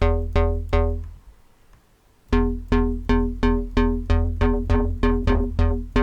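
A UK bass pluck patch in the Xfer Serum software synth: square-wave oscillators with a sub an octave down, run through a low-pass filter swept by the envelope, played as short repeated notes. Three quick notes, a pause, then a steady run of notes about 2.7 a second, each bright at the attack and quickly dulling, over a heavy bass.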